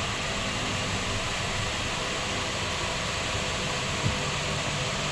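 Steady hiss-like background noise, with one soft low thump about four seconds in.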